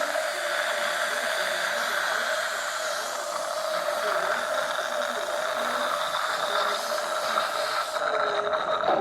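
Dental equipment running steadily: a continuous hiss with a steady mid-pitched hum under it. Near the end the hiss loses its highest part.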